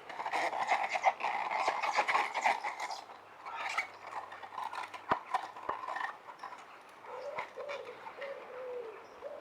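A tight Schwalbe Pro One road tyre being worked off a rim by hand: rubber squeaking and rubbing against the rim with small clicks, busiest in the first three seconds and then in short bouts. A low wavering call repeats several times near the end.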